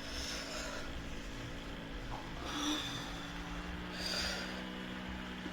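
A person breathing audibly, with three soft, hissy breaths about a second and a half to two seconds apart.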